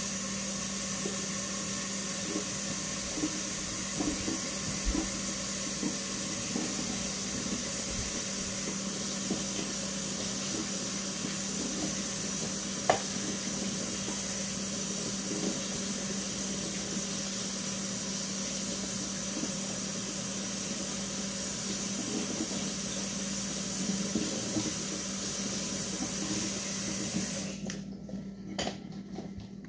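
Kitchen tap running steadily, shut off about two seconds before the end, with a single sharp tap about halfway through.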